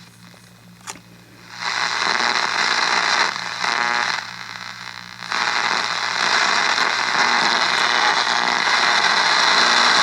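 Static hiss from a Panasonic R-314 vintage portable radio's speaker, starting loud after a click about a second in, dipping briefly in the middle and then running steadily. No station comes through, only noise; the radio is found dead on its bands.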